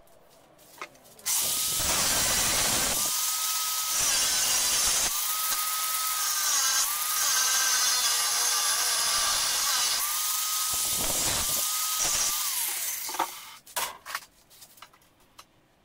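Angle grinder starting up and cutting a metal bar. Its steady high motor whine dips briefly several times as the disc bites, over the loud hiss of the cut. Near the end it winds down, followed by a few sharp knocks as it is set down.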